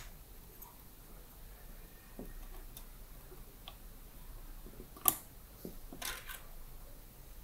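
A DDR4 laptop RAM stick (SO-DIMM) being pressed into its slot on a mini PC's board, with small plastic clicks and handling noise, a sharp click about five seconds in as the module snaps into its latches, and a softer clatter about a second later.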